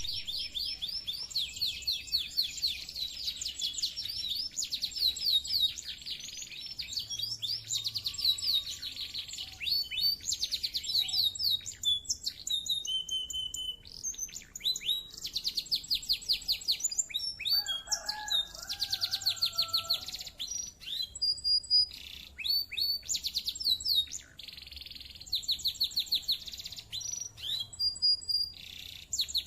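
Domestic canary singing continuously: long phrases of fast, high rolling trills and rattles with short breaks between them, and a lower, softer warble around the middle.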